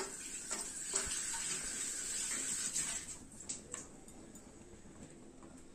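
Almond pieces dropped into ghee in a stainless steel pan: a few light ticks and splashes with a soft hiss that fades after about three seconds.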